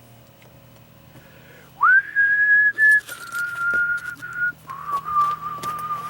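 A person whistling three long notes in a falling line, sliding up into the first, with a few light clicks and knocks alongside.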